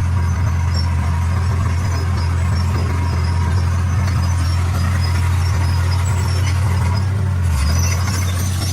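D41 bulldozer's diesel engine running steadily under load with a constant low drone, as the machine pushes and levels stone.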